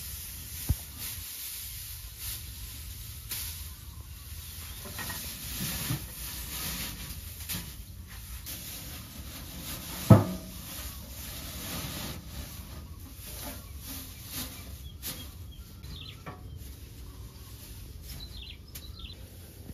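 Dry straw rustling as it is spread and pushed down over rows of metal baking tins, with scattered light clicks. One louder knock comes about halfway through.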